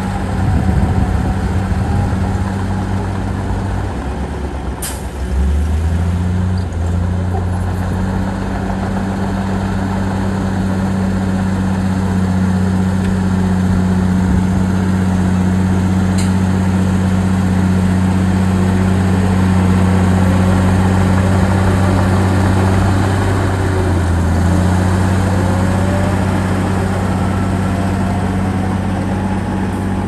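Heavy diesel engine running steadily under load, its pitch stepping up about five seconds in and dipping briefly around twenty-four seconds, with two brief sharp sounds along the way.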